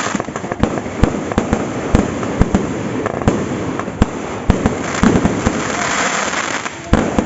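Fireworks going off in a dense, continuous barrage: many sharp bangs at irregular intervals over a steady background of crackle and distant pops.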